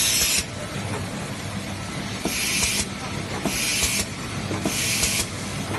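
Facial-tissue log saw cutting machine running with a steady hum, and four short hisses of compressed air, the last three about a second apart, from its pneumatic cylinders exhausting as it cycles.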